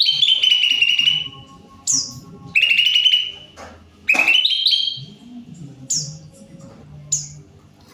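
Caged green leafbird (cucak ijo) singing in full voice. Three long, loud, rapidly trilled phrases are broken up by short, high, falling whistles, the later ones spaced out toward the end.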